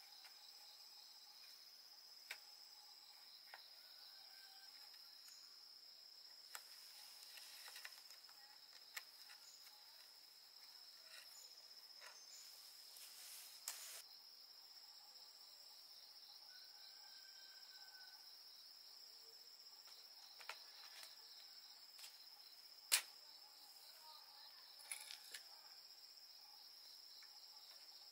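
Faint steady, high-pitched insect chirring, with scattered light clicks and taps; one sharper click comes about two-thirds of the way through.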